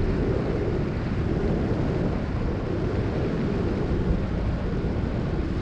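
Wind rushing over an action camera's microphone in flight under a tandem paraglider: a steady, fairly loud buffeting noise, heaviest in the lows.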